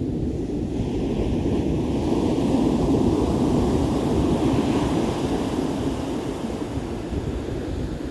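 Ocean surf washing in on the beach, swelling to its loudest a few seconds in and then easing off, with wind rumbling on the microphone.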